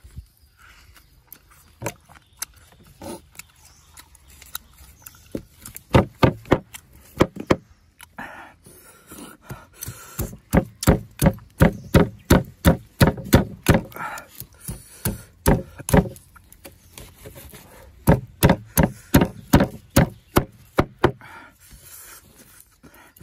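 Runs of sharp knocks, about three a second, with short pauses between the runs.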